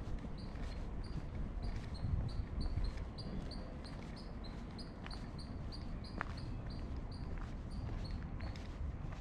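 Footsteps on a canal towpath with outdoor background rumble, while short high chirps repeat rapidly and evenly, about three or four a second, through almost the whole stretch.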